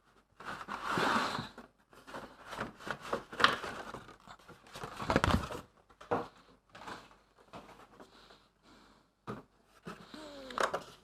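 Product packaging being handled and opened: irregular rustling, scraping and sharp clicks, with a louder scrape about five seconds in.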